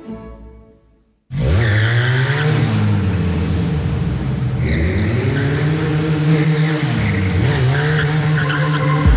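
Benelli 502C's 500 cc liquid-cooled parallel-twin engine starts suddenly about a second in and revs up and down repeatedly, with tyre squeal mixed in.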